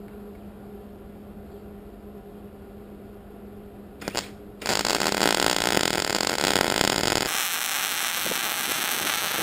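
A low steady hum, a couple of clicks just after four seconds in, then a MIG welding arc starts at about five seconds in, with a loud steady crackle and buzz on steel.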